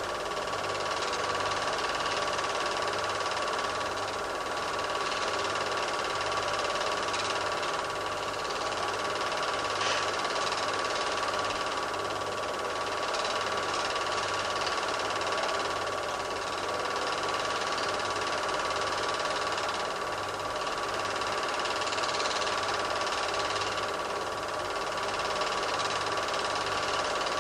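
Film projector running, a steady mechanical whir with a slow, regular low pulse.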